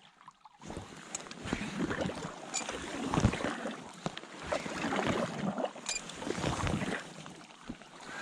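Paddle strokes dipping and splashing in the water beside a packraft, an uneven swish after swish that starts about half a second in, with a few light clicks.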